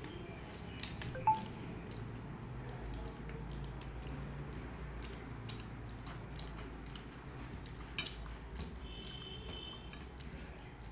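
Wet, squishy eating sounds: rice and dal being chewed and mixed, with many small scattered clicks. A brief high tone sounds about a second in.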